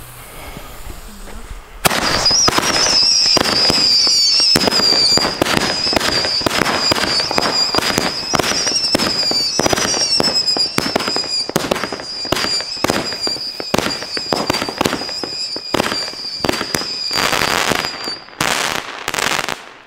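Street Fireworks 'Mayhem' 25-shot, 20 mm firework battery: a faint fuse burn, then about two seconds in the battery fires a rapid, loud volley of shots and crackles under a steady high whistle from its howler effects. Near the end the whistle stops, a last few shots go off, and the firing ends.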